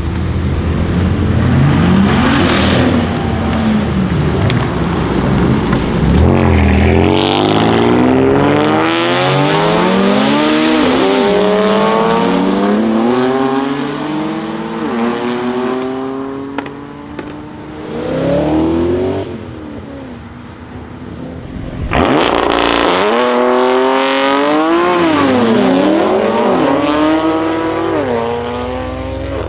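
Stage 3, 650 hp BMW M3 F80 twin-turbo straight-six with a straight-piped Milltek exhaust, revving and then accelerating hard away through several quick upshifts. The pitch climbs and drops with each gear before fading. About 22 seconds in, a BMW X5 M SUV starts accelerating hard, its engine note rising and falling through gear changes.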